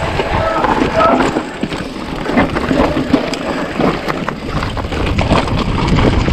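Bicycle ridden along a rough trail: tyres rolling over uneven ground with frequent knocks and rattles from the bike, and wind rumbling on the microphone.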